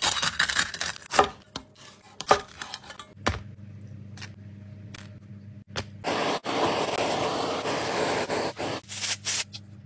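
A knife cutting through crispy pork belly skin, making a run of sharp crunching crackles, followed a few seconds later by a steady hiss that lasts about three seconds.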